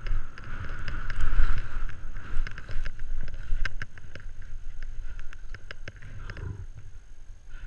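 Skis swishing through deep powder snow on a downhill glide, with wind rumbling on the camera microphone and scattered sharp clicks. Loudest in the first couple of seconds, easing off after about six seconds.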